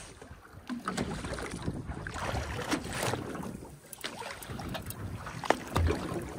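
Wind buffeting the microphone and water lapping against the side of a boat's hull, with a few sharp knocks or clicks scattered through, the loudest about five and a half seconds in.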